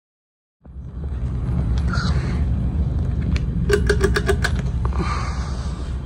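Gulf Coast Meridian ceiling fan running overhead, its airflow buffeting the microphone as a fluttering low rumble that cuts in just under a second in. Near the middle comes a quick run of about eight sharp clicks.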